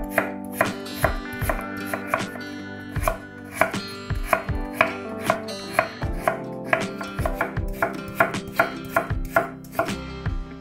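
Kitchen knife chopping vegetables on a wooden cutting board, in quick, even strokes about two to three a second. Soft background guitar music runs underneath.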